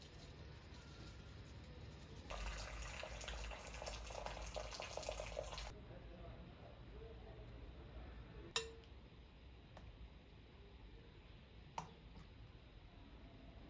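Water running for about three seconds, then two sharp clinks about three seconds apart.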